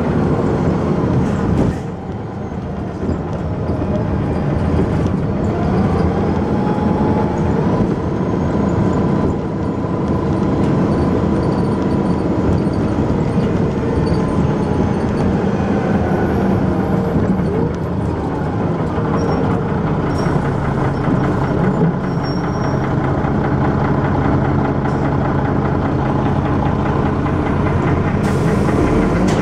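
Dennis Arrow double-decker bus heard from on board, its engine running with heavy mechanical thrash and a whine that rises and falls as it drives.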